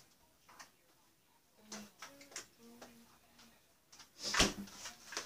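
Kitchen handling sounds: a few light clicks and knocks, then a louder knock about four seconds in, like a door or drawer shutting.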